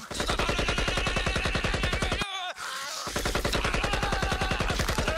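Rapid automatic machine-gun fire, evenly spaced shots in two long bursts with a short break about two seconds in. A wavering voice cries out over the fire.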